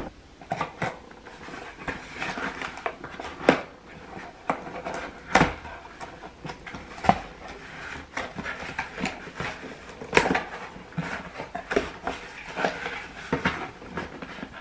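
Cardboard shipping box being opened and its contents taken out by hand: scattered knocks, scrapes and rustling of cardboard and packaging, with a few sharper knocks spread through.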